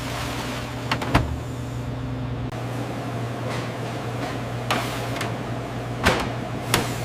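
A steady low mechanical hum with sharp clacks: two close together about a second in, then single ones near the middle and two more near the end.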